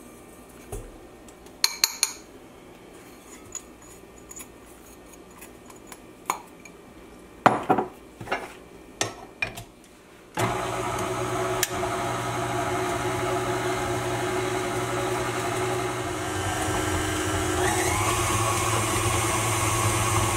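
A few knocks and clinks against a glass mixer bowl, then a KitchenAid tilt-head stand mixer switches on about halfway through and runs steadily, its beater creaming butter and sugar. The motor gets a little louder near the end.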